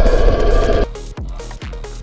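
Electronic dance music: a loud, dense sustained passage cuts off a little under a second in, then a steady kick-drum beat about twice a second with a short synth riff.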